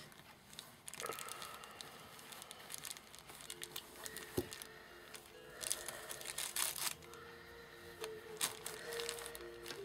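Fabric and lace trim rustling and crinkling as hands handle and smooth it, in irregular scuffs that are busiest past the middle. Soft held notes of background pan-pipe music come in about a third of the way through.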